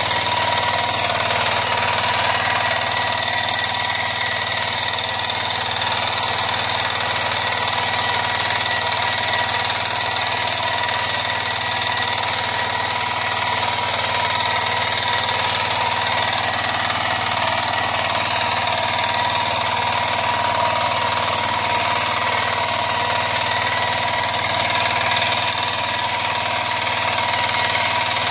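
A 9 hp mini tiller's engine running steadily while the tiller drags its bed-maker attachment through the soil, shaping a raised bed.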